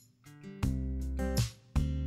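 Instrumental background music: a guitar playing chords, with a new chord struck about every second.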